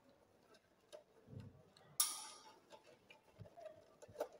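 Faint clicks and ticks of an insulated screwdriver working a terminal screw on a three-pole main switch as a wire is connected, with one sharper click about two seconds in.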